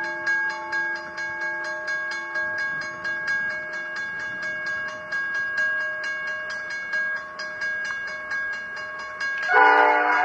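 Crossing bells ringing steadily as a diesel freight train approaches. About nine and a half seconds in, the lead Pacific National locomotive sounds its horn briefly, the loudest sound here.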